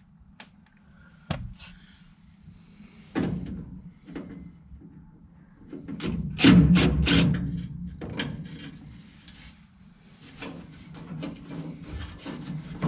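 Hand-tool work on an old pickup truck: a few sharp knocks, a loud scraping clatter about six to seven seconds in, then a run of light clicks.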